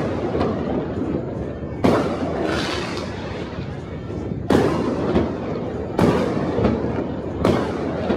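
Fireworks going off across a city: four sharp bangs, spaced roughly a second and a half apart, over a continuous rumble and crackle of many other bursts.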